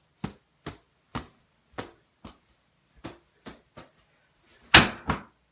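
Plush stuffed toys knocked together in a mock fight: a run of quick, soft thuds, roughly two a second, with two louder hits close together near the end.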